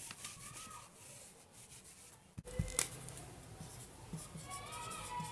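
Writing strokes, a pen scratching in short repeated strokes, with a sharp tap about two and a half seconds in.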